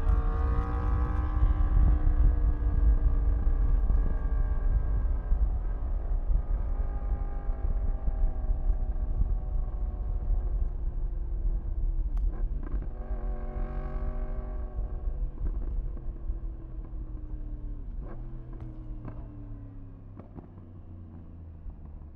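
2015 Yamaha R1M's crossplane inline-four engine under way, its pitch sinking in long glides and twice climbing briefly as the revs pick up again, over a deep wind rumble. It grows gradually quieter toward the end.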